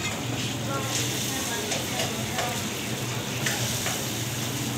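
Battered fish pieces deep-frying in a large wok of hot oil: a steady sizzle, with a few light clicks.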